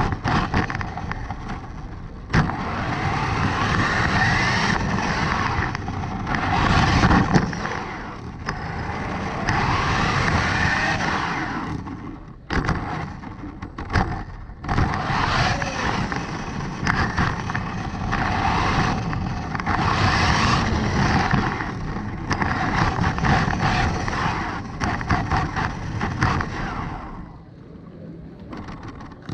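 Electric motor and gears of a 1/16-scale Traxxas RC car whining and buzzing, heard from a camera riding on the car, with tyre noise from the pavement. The sound rises and falls with the throttle, drops off briefly about halfway through, and dies down again near the end.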